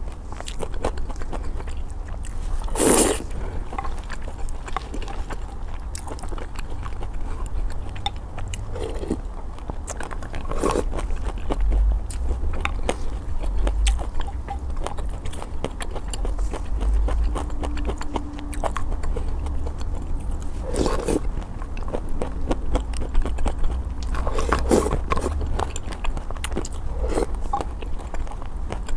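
Close-miked eating of luosifen rice noodles: steady chewing and slurping, with a few louder slurps now and then, over a low steady hum.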